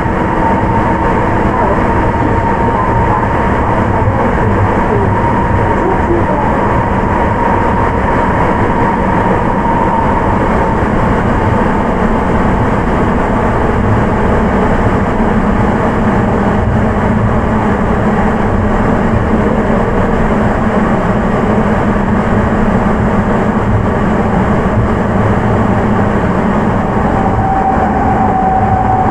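Interior running noise of a Sapporo Municipal Subway 9000 series train (Hitachi IGBT-VVVF) on the rubber-tyred Toho Line: a steady, loud rumble in the tunnel. A faint high whine fades out about ten seconds in, and another comes in near the end.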